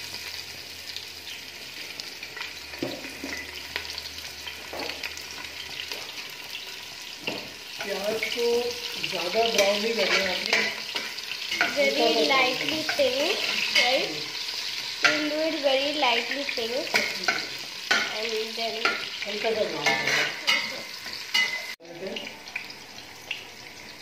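Chopped onion frying in hot oil in a stainless steel pot: a steady sizzle throughout. From about a third of the way in until near the end, a metal spoon stirs the onion, with scraping and knocking against the pot.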